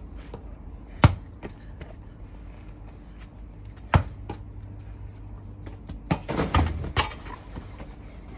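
Two sharp thuds of a football being struck, about a second in and about four seconds in, then a quick flurry of knocks and scuffling near the end as a body lands on cushioned garden seats.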